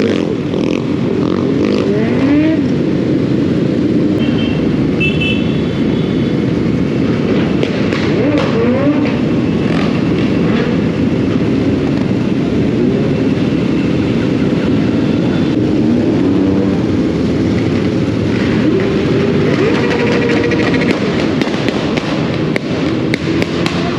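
Motorcycle engine running while riding, its pitch rising and falling several times with the throttle, over a dense, steady low rush.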